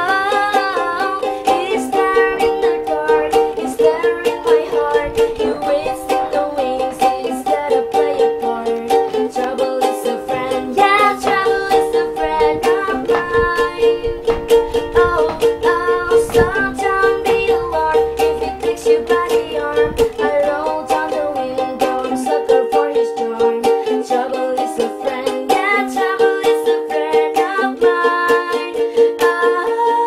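Background music: a melodic tune on plucked strings with a steady rhythm.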